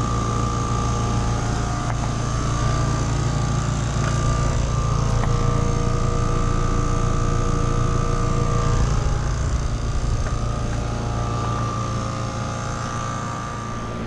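Outdoor unit of a Trane XR-series heat pump running in heat mode, its fan and compressor giving a steady low hum under a steady high tone.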